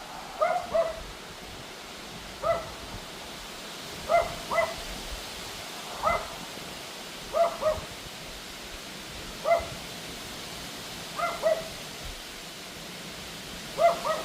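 Pomeranian barking in short, high yaps, singly or in quick pairs, about every two seconds, over a steady hiss of wind.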